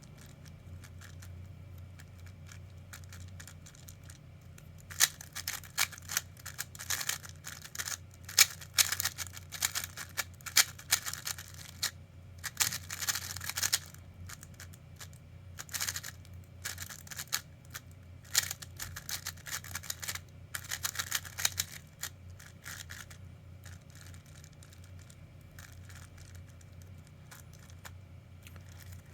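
Quick, irregular clicking and rattling from a Tornado unit, dense from about five seconds in until about twenty-three seconds, over a steady low hum. The clicks are most likely its corner magnets wiggling in place, likely normal and not a defect.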